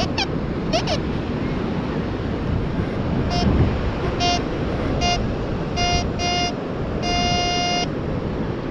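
Metal detector beeping as its coil is swept over beach sand: short beeps at one steady pitch about once a second, a quick double beep, then one longer beep near the end. The beeps are the detector signalling a buried metal target.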